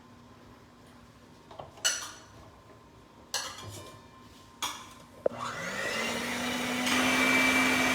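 A few light clinks of kitchen utensils, then an electric mixer switches on about five seconds in, spinning up and running steadily while whipping cream.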